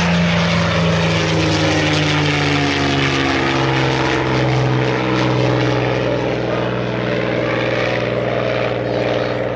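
Single-engine propeller warbird flying past, its engine drone loud and steady, dropping in pitch a few seconds in as the plane passes and pulls away.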